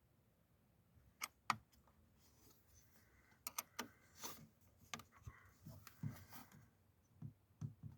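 Faint, scattered metallic clicks and taps of hand tools working a car battery's positive terminal clamp, which will not tighten onto the post.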